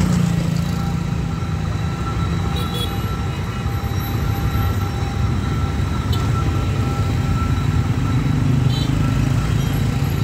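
Many motorbike and scooter engines running together as a dense stream of traffic crosses a railway level crossing.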